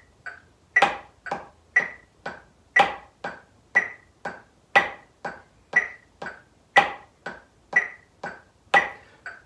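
Wooden drumsticks playing single paradiddles slowly on a drum practice pad: steady eighth notes at about two strokes a second, with a louder accented stroke every two seconds and quiet low taps between.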